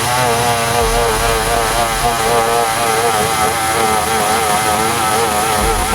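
Stihl 070 two-stroke chainsaw running at high revs, a steady engine note whose pitch wavers slightly.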